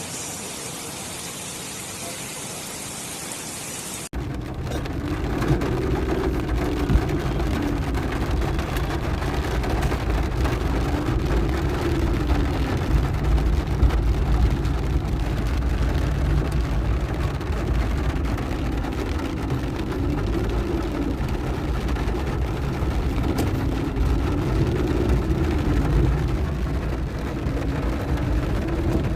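Heavy rain falling as a steady hiss for the first four seconds, then, after an abrupt cut, the deep rumble of vehicle engines on a waterlogged road, with a drone that rises and falls several times.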